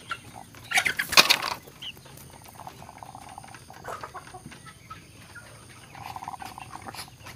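A chicken sick with ngorok (a respiratory 'snoring' illness, its airway clogged with mucus) as a feather is worked down its throat. About a second in there is a loud burst of struggling noise. Then come two short, buzzy, rattling sounds from the bird, one midway and one near the end.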